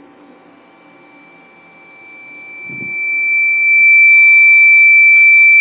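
Microphone feedback through the PA loudspeaker: one steady high-pitched squeal, with fainter higher overtones, swells from faint to very loud over the second half. It is the sign of the microphone picking up its own loudspeaker.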